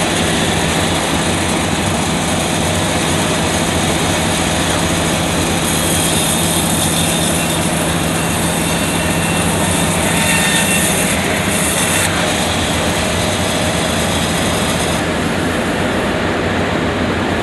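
Machinery running steadily, a constant low hum under a wide mechanical hiss, with the upper hiss swelling for a few seconds midway.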